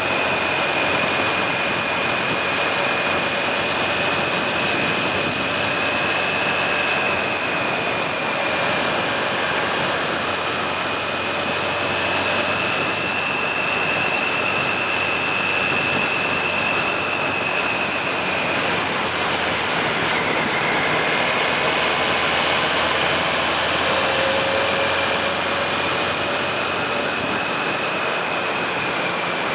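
Suzuki GSX1400's inline-four engine running steadily while riding, mixed with wind rushing over the microphone. A steady high whine sits over it, drifting slightly in pitch.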